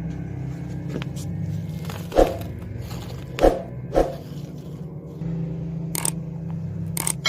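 Three dull hammer blows on metal at a blacksmith's anvil, the last two close together, over a steady low hum. A couple of light metallic clicks come near the end.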